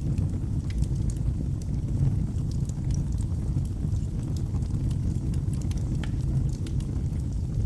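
Wood fire burning in a fireplace: a steady low rumble of flames with scattered sharp crackles and pops from the burning logs.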